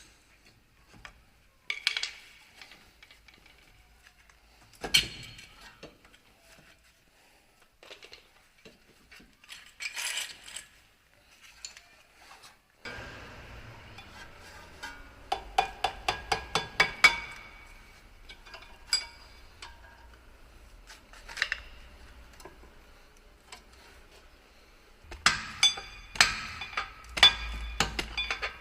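Metal tools clinking and clicking as they are handled, with quick runs of sharp clicks around the middle and again near the end.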